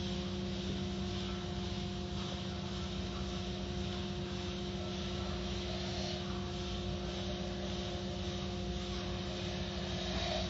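Automatic soft-cloth car wash running: a steady machine hum over a constant hiss of water spray, as foam-soaked cloth strips sweep across a car.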